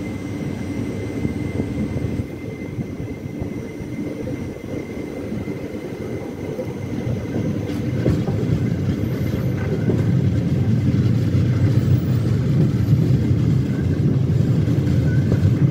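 Passenger train running on the rails: a steady rumble of wheels and coaches that grows louder about halfway through.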